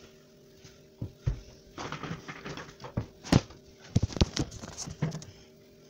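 Irregular knocks and thumps with rustling, as of things being handled and moved about in a small room, the sharpest knock about three and a half seconds in.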